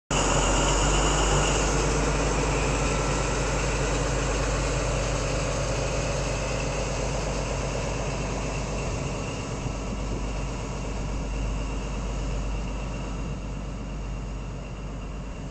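InterCity 125 HST diesel power car pulling away under power, its engine running hard with a high whine, then fading gradually as the coaches roll past on the rails.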